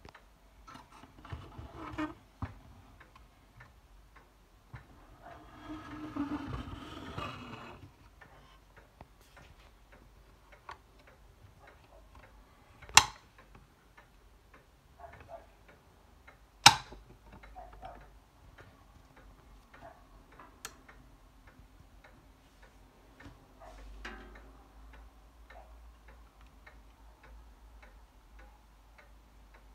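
Faint regular ticking throughout, with a stretch of rustling handling about six seconds in. Two sharp, much louder clicks about four seconds apart near the middle come from the lamp's switch being worked as the lamp is switched on.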